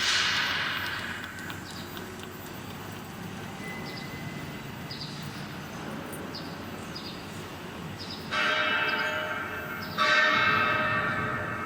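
Three sudden metallic clangs, at the start, about eight seconds in and about ten seconds in, each ringing and fading away over a second or two, with faint steady noise and light ticks between them.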